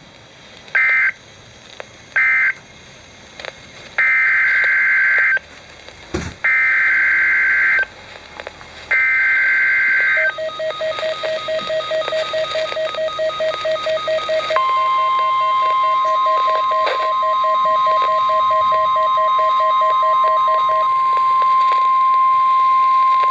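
EAS/NOAA Weather Radio SAME data bursts: three short end-of-message bursts close the severe thunderstorm warning, then three longer header bursts announce the next alert. A pulsing electronic beep follows, then about halfway through the steady single-pitch 1050 Hz Weather Radio warning alarm tone starts and holds. There is one dull thump in between.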